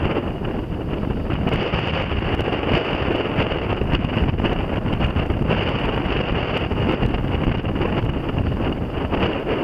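Wind buffeting the microphone aboard a sailboat under way, a steady rushing noise with no distinct tones or knocks.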